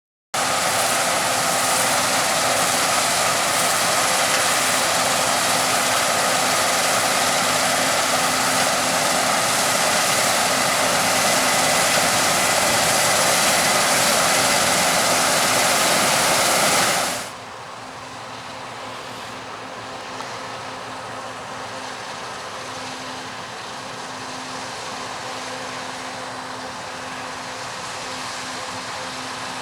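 Claas Lexion 750 combine harvester running steadily while harvesting, a dense mechanical noise with a constant hum. About seventeen seconds in it drops suddenly to a much quieter, still steady level.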